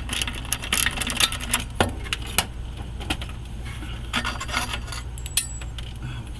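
Hand tools and metal exhaust hardware clinking and scraping in irregular sharp clicks while the exhaust collector joint is unbolted, over a steady low hum.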